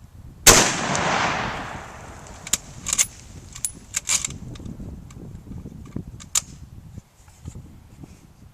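A single loud shot from a 7.62×54R rifle about half a second in, with a long rolling echo that dies away over the next second and a half. After it come several short, sharp clicks.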